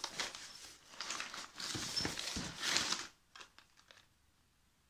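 Crumpled packing paper rustling and crinkling as hands dig through it inside a cardboard box, stopping about three seconds in, followed by a few faint ticks as a small cardboard box is handled.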